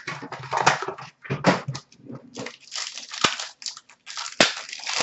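Foil trading-card pack wrapper being crinkled and torn open, an irregular crackling, with two sharp clicks about three and four and a half seconds in.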